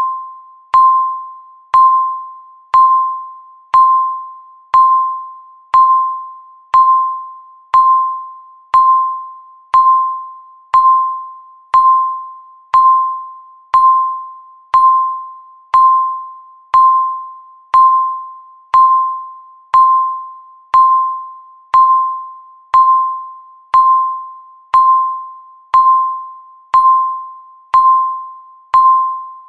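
Countdown timer beep sounding once every second, a single clear tone that starts sharply and fades before the next one, marking each second left in the count.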